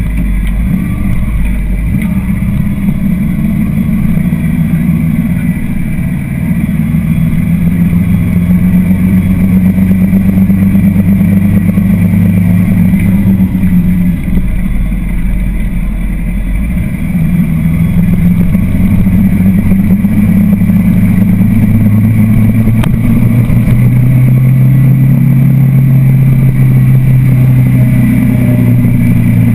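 Motorcycle engine running under way as it is ridden, heard from the rider's position. The engine note drops lower for a few seconds around the middle, then picks up and rises again through the second half.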